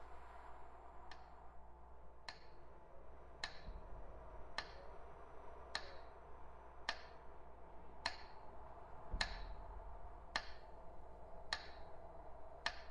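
Clock ticking slowly and evenly, one sharp tick a little more than once a second, each with a short bright ring, over a faint steady hum.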